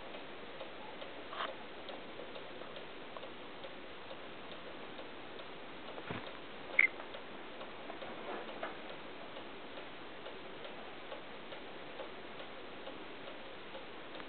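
Pet rat bruxing: a faint, fast clicking of its teeth grinding together, the sign of a relaxed, content rat being petted. A sharper single click stands out about seven seconds in.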